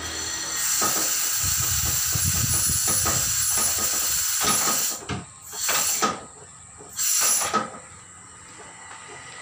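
Air hissing from a truck-tyre changing machine as its arm is worked down onto the tyre. A long, loud hiss with a low rumble under it is followed by two shorter bursts about a second and a half apart.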